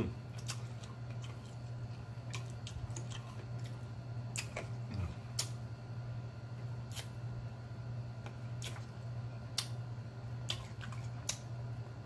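Close-up mouth sounds of eating saucy chicken wings: irregular wet smacks, clicks and chewing, with fingers licked clean, over a steady low hum.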